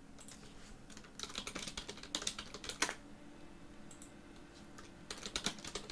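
Typing on a computer keyboard: two runs of quick keystrokes, the first starting a little after a second in, the second near the end.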